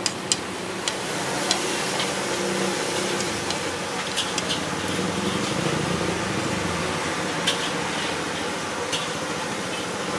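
Steady din of a street-food stall with about a dozen sharp clinks scattered through it, like metal utensils or crockery being handled.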